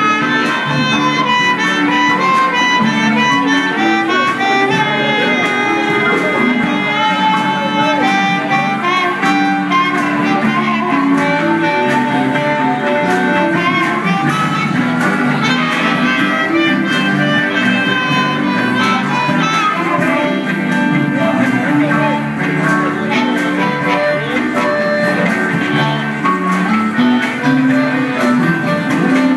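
Live blues band playing, with a harmonica carrying long held, bending notes over electric guitars and a keyboard.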